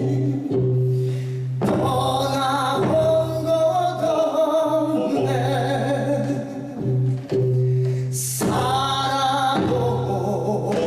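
A male singer performing a Korean song with vibrato over instrumental accompaniment. A low held bass note breaks off and comes back several times.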